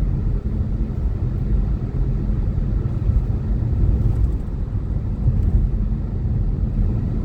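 Steady low rumble of a car driving, engine and road noise heard inside the cabin.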